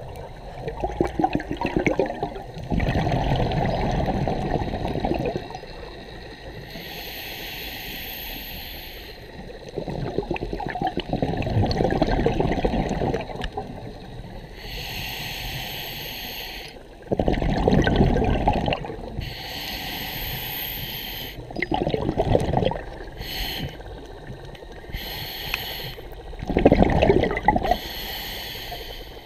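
Scuba diver breathing through a regulator underwater: a short hiss of each inhalation through the demand valve, then a longer burst of gurgling exhaled bubbles, the cycle repeating about every five seconds.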